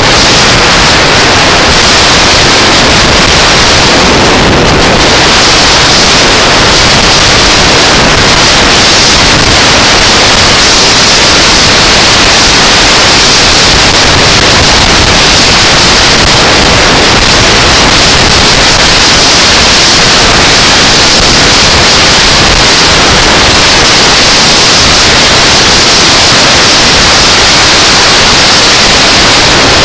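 Loud, steady wind noise on the microphone of a motorcycle cruising at highway speed: an even hiss with no engine note standing out.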